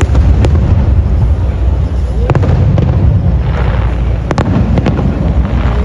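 Aerial firework shells bursting: a steady low rumble of booms with sharp cracks about half a second in, around two seconds, and a cluster just past four seconds, and a fizz of crackling stars between them.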